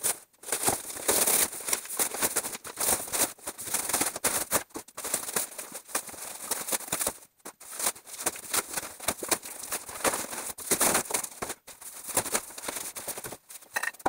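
Large cardboard carton being cut and torn open and its sides pulled away: irregular scraping, rustling and crackling of cardboard with sharp snaps, pausing briefly a few times.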